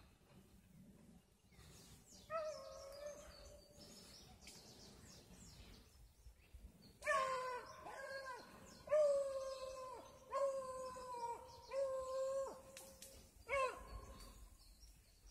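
Rabbit hounds baying (opening) on a rabbit's trail: one long drawn-out bawl a couple of seconds in, then a string of about five more long bawls in the back half.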